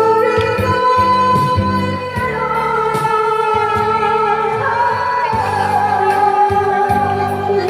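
A woman singing a slow song in long held notes over instrumental accompaniment with a steady, regular bass line.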